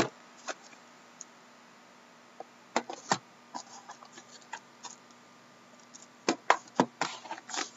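Shrink-wrapped cardboard hobby boxes of trading cards handled and turned over by hand: scattered crinkles of the plastic wrap and light knocks, in two bunches about three seconds in and again from about six seconds in, with quiet gaps between.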